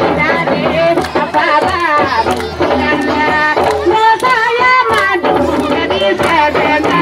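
Music: a singing voice with gliding, ornamented melody lines over steady percussion strikes.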